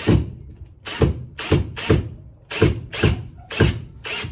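Cordless drill/driver driving a screw into wood in short, repeated trigger bursts, about two a second.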